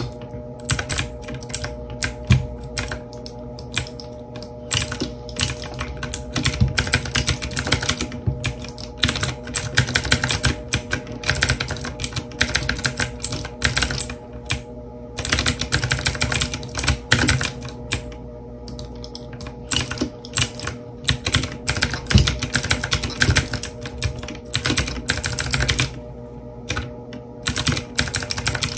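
E-Element Z-88 mechanical keyboard with blue switches being played on fast: dense runs of keystrokes, broken by a few short pauses.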